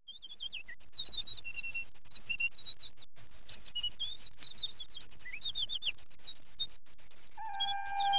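Many small birds chirping in a dense chorus of short, quick falling chirps, fading in at the start. Near the end, music with long held notes begins under the birdsong.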